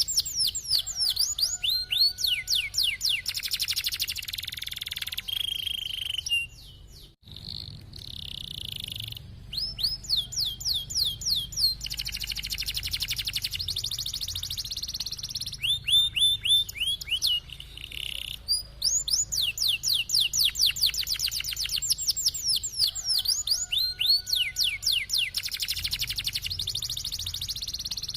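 Domestic canary singing a long, fast-rolling song: rapid trills of repeated downward-sweeping notes, high and low, broken by a few short steady whistled notes, with a brief pause about seven seconds in.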